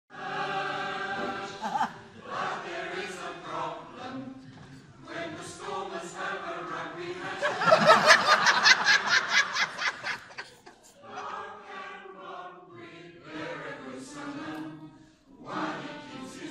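A choir singing, in phrases with short breaks between them. About halfway through comes the loudest stretch, rapid evenly spaced pulses close to the microphone over the singing.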